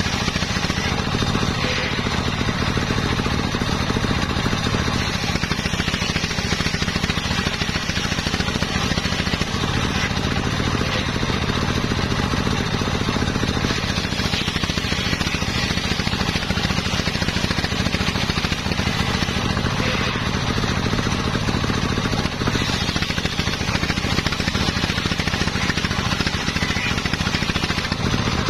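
Homemade table circular saw ripping waru (sea hibiscus) wood into battens: the large blade cutting steadily through the plank over the constant drone of the motor that drives it.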